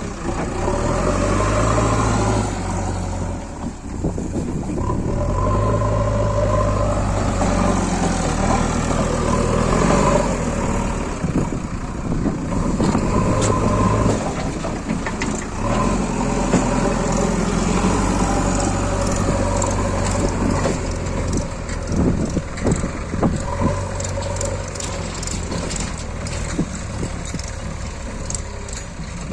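JCB 3DX backhoe loader's diesel engine working a load of red mud, its note rising and falling every few seconds as the loader is worked. In the last third, a run of short knocks and clatter.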